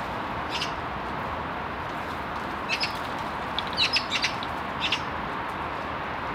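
Short, high bird chirps in scattered groups: one, then a pair, then a quick cluster of about four, then one more, over a steady background hiss.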